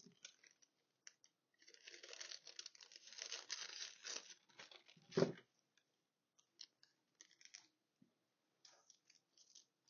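A sheet of thin translucent paper rustling and crinkling as it is lifted and handled over a drawn pattern, with one louder, sharper rustle about five seconds in, then a few faint light rustles and taps.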